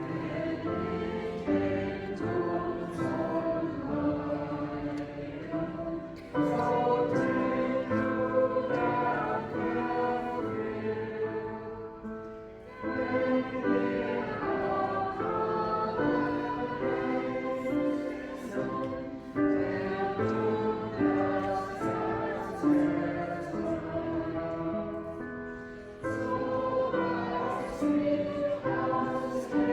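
Church choir singing in slow phrases of about six seconds each, with short breaks between phrases.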